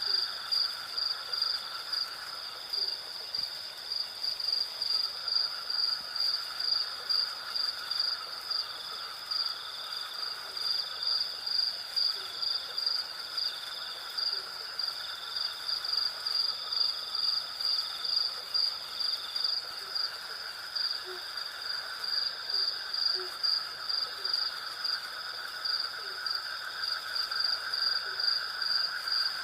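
Night insect chorus: crickets chirping in an even pulsing rhythm of about two chirps a second, over a continuous high insect drone. Faint short low calls come every few seconds.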